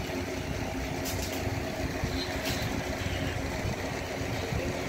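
Steady low machine hum of a running motor, with a few light clicks about a second in and again a little later.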